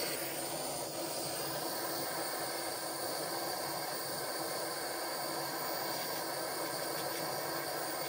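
Small gas torch flame hissing steadily while it heats flux on a silver watch case before soldering.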